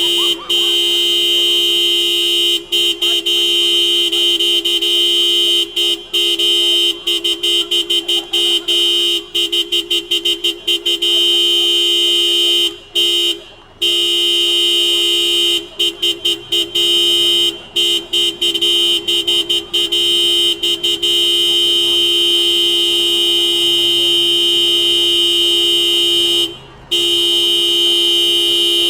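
Two-tone car horn held down nearly continuously in protest honking. It is cut by short breaks and runs of quick taps, with a longer pause about 13 seconds in and another near the end.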